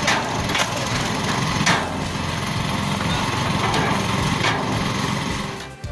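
A machine running steadily while it splits wood, with about five sharp cracks of wood splintering. The sound cuts off abruptly near the end.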